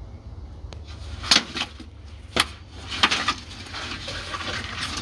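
A few sharp knocks and clicks on a wooden lizard enclosure as metal feeding tongs and feeding lizards strike the wood, the strongest about a second and a half in and around two and three seconds in, followed by a rustling scrape near the end.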